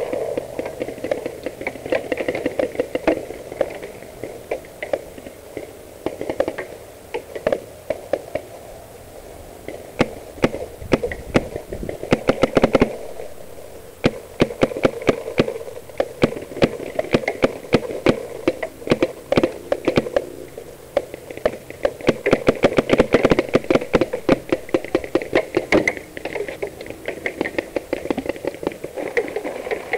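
Paintball markers firing in rapid strings of sharp pops, with bursts heaviest about a third of the way in and again just past the middle.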